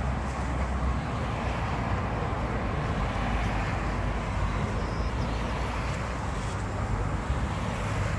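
Steady outdoor background noise with a low rumble, such as wind buffeting a phone microphone, with no distinct events standing out.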